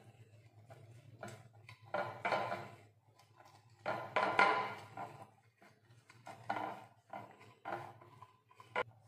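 Silicone pastry brush rubbing oil around the cups of a nonstick appe pan in several short strokes, the loudest about four seconds in, with a sharp click near the end and a low steady hum underneath.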